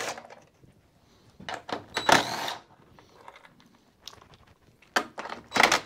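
DeWalt cordless drill-driver running in a few short bursts, backing out the 10 mm screws of a lawn mower engine's recoil cover, with small clinks of the loosened screws being handled between runs.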